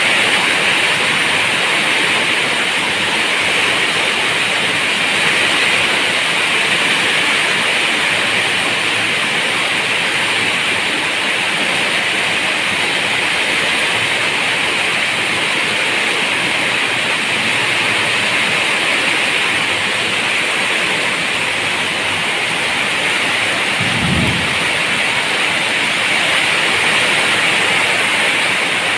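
Steady heavy rain falling, an even hiss with no let-up. Near the end comes one short, low rumble.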